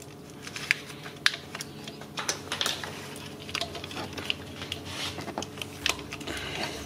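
Irregular small plastic clicks and rattles as hands work a plastic clip and a corrugated plastic wiring loom to free the transmission cable.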